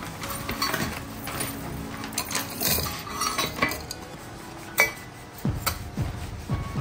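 Pieces of scrap silver jewellery clinking as they are handled and dropped into a crucible, a run of small scattered metallic clicks with one sharper knock about five seconds in.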